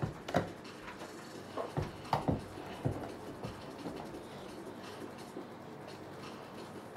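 A quick run of soft knocks and thumps, about seven in the first three seconds, then quieter room noise with only a few faint ticks.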